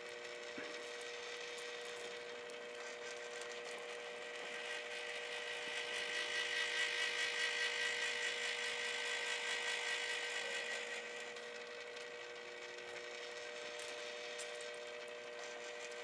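Homemade rotisserie humming steadily as it turns a pork shoulder on the spit, with a hissing, slightly pulsing layer that swells up in the middle and fades again.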